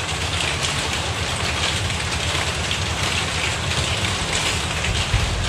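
Heavy rain falling on the roof, a steady, even hiss.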